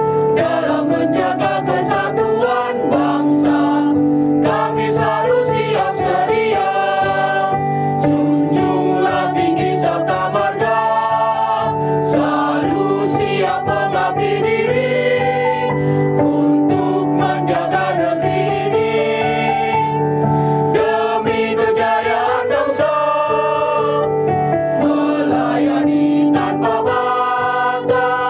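Small mixed choir of women and men singing a march, accompanied by an electronic keyboard.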